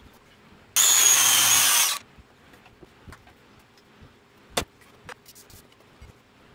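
Corded circular saw running for just over a second, starting and stopping abruptly with a high motor whine. A few seconds later comes a single sharp knock.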